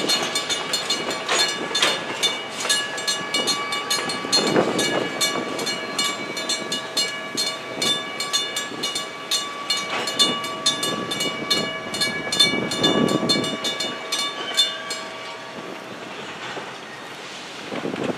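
US&S teardrop mechanical crossing bells ringing rapidly, with a freight train's wheels thudding over the crossing every few seconds. The bells stop about fifteen seconds in, leaving the rumble of the passing train.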